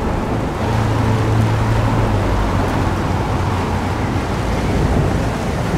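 Stormy-sea sound effects: a steady wash of wind and rough waves, with a low boat-engine hum coming in about half a second in.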